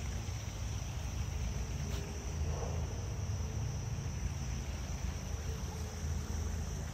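A steady, high-pitched chorus of insects such as crickets, over a low steady rumble.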